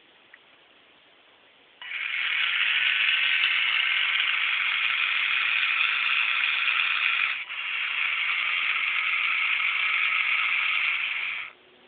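Small electric motor of an Arduino-driven automatic curtain opener running with a rattle as it moves the curtain. It starts suddenly about two seconds in, breaks off for an instant about halfway, then runs on and stops abruptly near the end.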